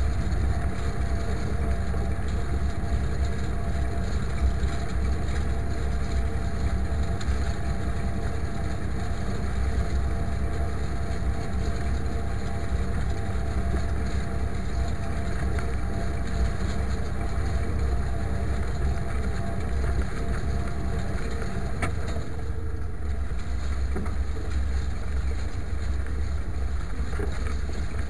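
IMT 539 tractor's three-cylinder diesel engine running steadily under load while pulling a harrow.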